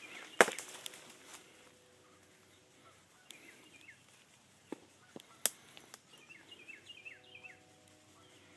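Scattered sharp cracks of airsoft gunfire, the loudest about half a second in and a few fainter ones over the next five seconds. A bird gives short falling chirps, once a little after three seconds and in a quick run of five or six near the end.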